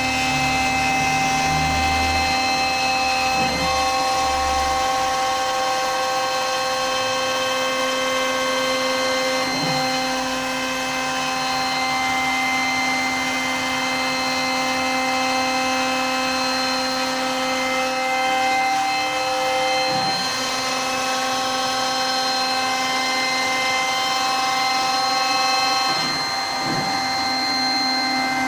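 CNC router cutting MDF: the spindle runs with a steady whine, while some of its tones shift to a new pitch every several seconds as the cut goes on.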